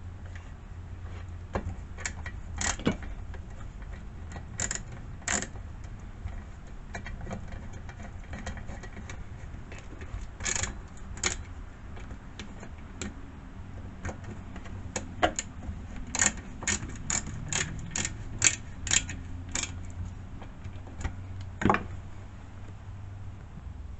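Hand tools and small metal parts clicking and clinking in scattered sharp taps as a chainsaw's muffler is being swapped, with a quick run of clicks about two-thirds of the way through. A steady low hum runs underneath.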